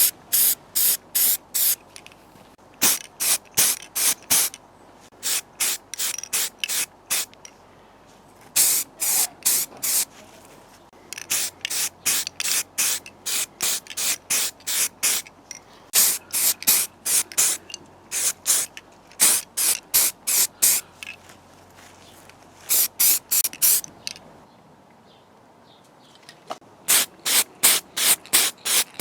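Aerosol spray can sprayed in quick short hissing bursts, about two or three a second, in runs of several with brief pauses between runs.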